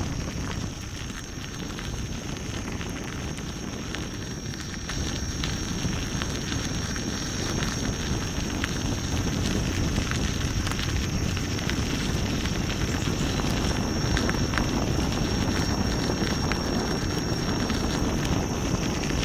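Wind buffeting the microphone over the rolling of a Gotway MSuper3 electric unicycle's tyre on a packed gravel path: a steady low rumble with a few small ticks, under a faint steady high whine.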